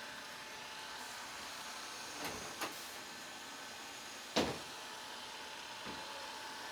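Eufy E25 robot vacuum running quietly while mapping the room, a steady soft hum and hiss. A few short knocks break in, the loudest about four and a half seconds in.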